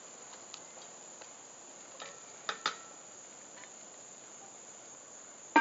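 Cast-iron Dutch oven lid set down on the pot near the end: a loud metallic clank with a brief ring. Before it, a few light knocks of a wooden spoon against the cast-iron pot, over a steady chirring of insects.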